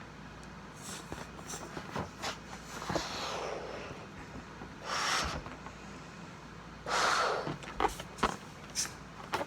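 Three short breathy rushes of air at a rubber balloon being blown up and sized, each under a second, with light clicks and rubber handling between.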